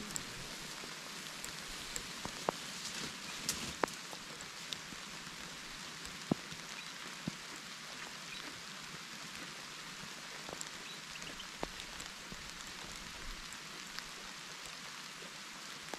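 Steady patter of light rain on grass and leaves, with scattered sharp ticks of single drops.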